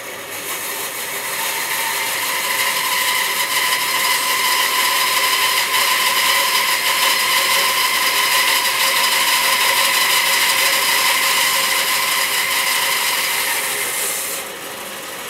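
Bandsaw running and cutting through a bark-covered log: a steady whine with the rasp of the blade in the wood. It gets quieter near the end.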